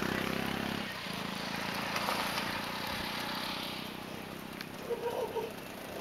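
Road traffic: a motor vehicle's engine, loud at first, fades away during the first second, leaving a steady wash of road noise.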